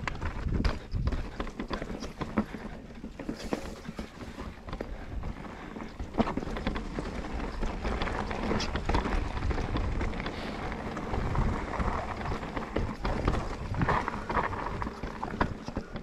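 Commencal Méta mountain bike riding down a rough trail: a continuous, irregular clatter of tyres and frame knocking over rocks and roots, over a steady low rumble.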